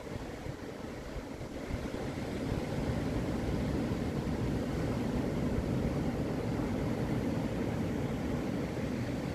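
Surf breaking on a sandy beach: a steady, low rushing rumble of waves that grows louder about two and a half seconds in.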